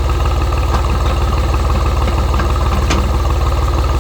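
Tractor engine idling steadily, its even firing pulse running without change, with a single faint click about three seconds in.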